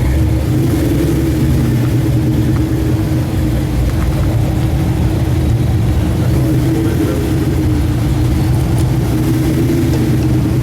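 Car engine running steadily at low revs, with no revving.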